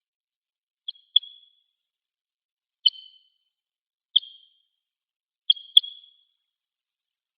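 Red crossbill giving short, sharp call notes: six in all, some single and some in quick pairs, each trailing off briefly.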